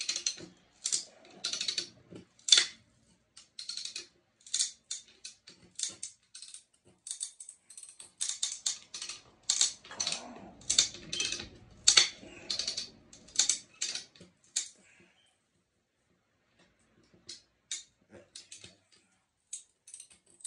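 Chain soil pipe cutter squeezing a geode: many sharp, irregular clicks and cracks as the chain bites into the rock's shell under building pressure. The clicking is dense for most of the time, stops, then returns as a few scattered cracks near the end, shortly before the geode bursts.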